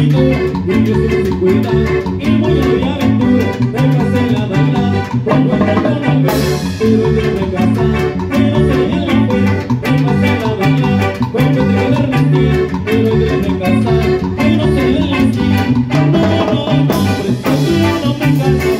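Live Latin dance band playing over a steady beat, with electric guitar, electric bass, congas and timbales. Cymbals come in brightly about six seconds in and again near the end.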